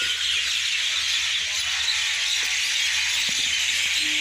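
Many small birds chirping at once, a dense and steady chatter of overlapping calls, as a flock gathers to roost.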